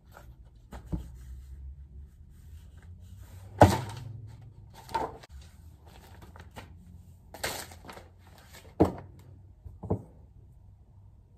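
Exercise books and a pencil case handled on a desk: a series of separate thumps and paper rustles as notebooks are picked up, flipped through and put down, the loudest about three and a half seconds in.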